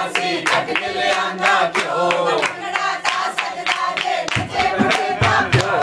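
A group of voices singing a Punjabi folk song, kept in time by rhythmic hand clapping at about four claps a second. Deeper low thumps join the beat about four seconds in.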